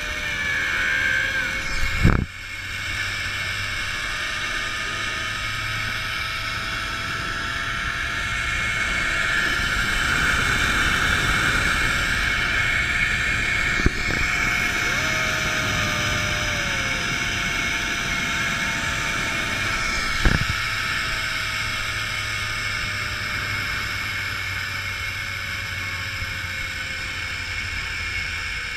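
Zipline trolley pulleys running along the steel cable: a steady whine that climbs slightly in pitch as speed builds and sinks towards the end as the ride slows, over rushing wind on the microphone. A few sharp knocks come through, about two seconds in, around the middle, and again about two-thirds of the way through.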